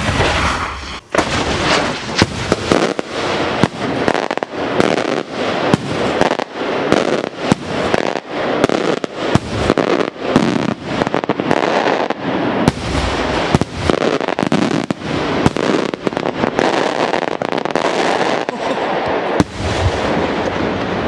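Maltese daylight firework shells going off: a sudden loud bang, then a dense, unbroken string of sharp bangs and crackling reports, several a second.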